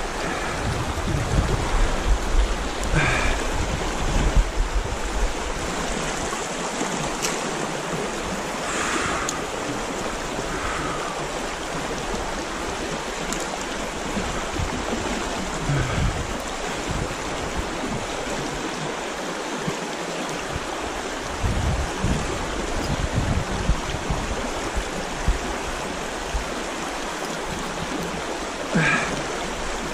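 Small trout river flowing, a steady even rushing of water, with a few short faint sounds here and there.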